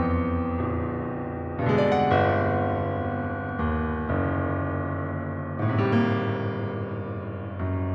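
Piano playing large chords, a new one struck about every two seconds and left to ring on, each using fresh keys in a piece where every one of the 88 keys sounds only once.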